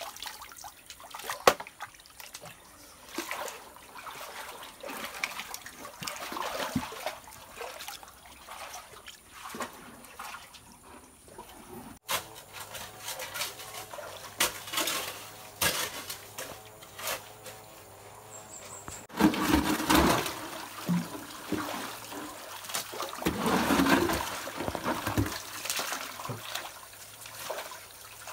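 Muddy stream water sloshing, trickling and splashing as gold is panned in a wide pan and gravel is dug with a hoe, with scattered knocks and scrapes. It grows louder, with heavier splashes and thuds, for the last third.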